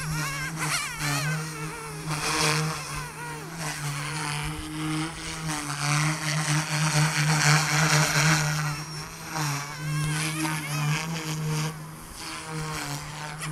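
OMPHobby M2 EVO electric micro RC helicopter in flight: a steady low rotor buzz under a motor whine that rises and falls in pitch as it manoeuvres.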